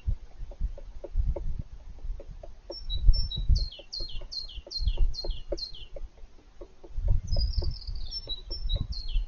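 Muffled, irregular knocking and dull thuds from inside a tree trunk, about two to three blows a second: a male green woodpecker chiselling out his nest cavity in an old apple tree. A songbird sings a repeated run of short falling notes over it, in two bursts.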